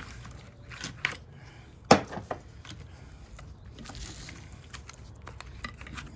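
Scattered sharp clicks and clanks of copper winding wire from a welder transformer being handled and trimmed, the loudest a little under two seconds in.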